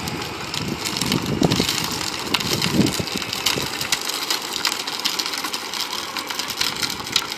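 Battery-powered ride-on toy Jeep driving over asphalt: its hard plastic wheels make a steady rough rolling noise with many small clicks.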